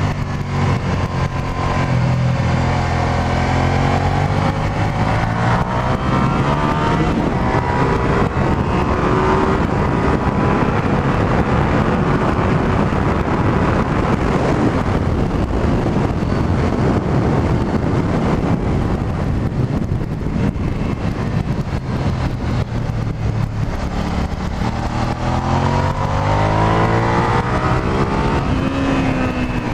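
2003 Suzuki SV650S's 645 cc V-twin engine under hard riding, heard from inside the rider's helmet. The revs sweep up and down through gear changes in the first several seconds. Then a steady heavy wind rush covers the engine at speed down the straight, and near the end the revs rise and fall again as the bike slows for a corner.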